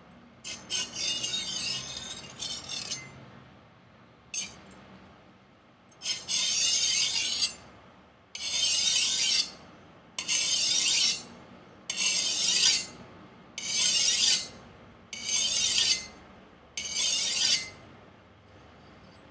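Chef knife's edge scraped across the diamond side of a Fallkniven DC4 pocket whetstone, grinding off a rolled factory edge: a few short scrapes, then seven even, rasping strokes about two seconds apart.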